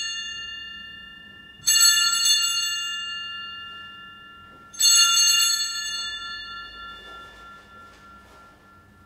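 Altar bell rung at the elevation of the consecrated host: the end of one ring fading at the start, then two more rings, about two seconds and about five seconds in, each a bright high ringing that dies away slowly.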